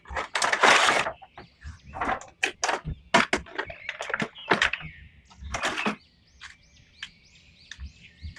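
Handling of plastic toys and packaging: a quick run of sharp clicks and taps with a rustle of packaging about half a second in. Faint high chirps sound behind them in the second half.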